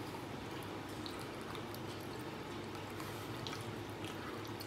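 Clear baijiu liquor trickling in a thin stream from a glass bottle into a small bowl: a faint, steady trickle with small drips.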